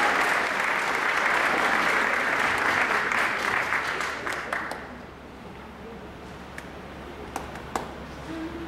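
Audience applauding, the clapping dying away about five seconds in, followed by a few single sharp clicks.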